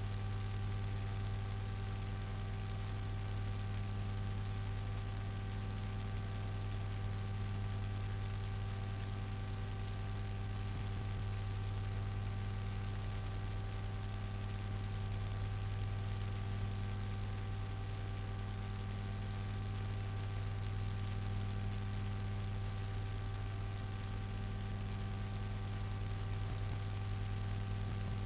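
Steady electrical mains hum in the live-cam audio feed: a strong low drone with several fixed higher tones over an even hiss, unchanging throughout.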